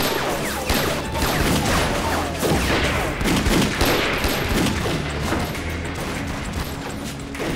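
Dense rifle fire, many shots overlapping in a continuous volley.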